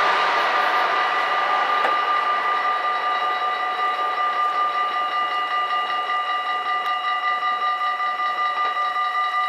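Dutch level-crossing bells ringing rapidly and evenly while the half-barriers rise, cutting off abruptly at the very end once the barriers are up. The rushing noise of the train that has just passed fades away over the first couple of seconds.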